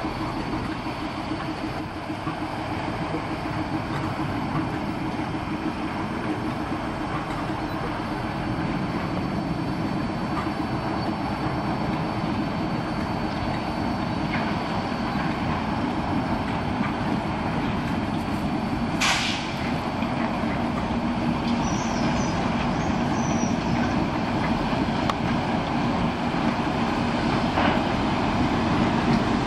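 Class 60 diesel locomotives, Mirrlees eight-cylinder engines, running with a steady drone as loaded hopper wagons are hauled through the sidings. About two-thirds of the way through comes one short, sharp hiss of air, and a few faint high squeaks follow soon after.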